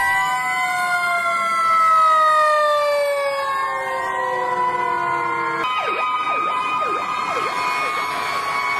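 Fire engine sirens wailing, several tones slowly falling in pitch together. About five and a half seconds in, the sound cuts abruptly to a steady chord of held tones with quick repeated dips.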